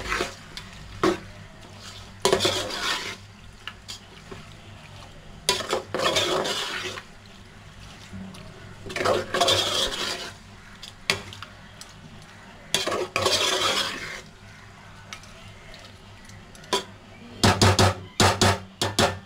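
Steel spoon stirring chicken pieces in a thick masala in an aluminium pot, scraping the pot in bouts about a second long. Near the end comes a quick run of loud sharp clinks of the spoon against the pot.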